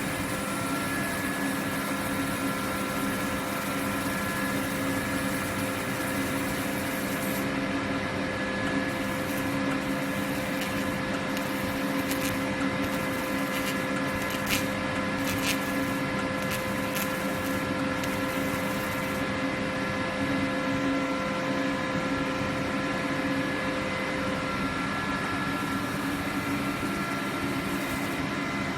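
CNC laser cutting machine running: a steady machine hum and hiss with several steady whining tones, and a few faint ticks around the middle.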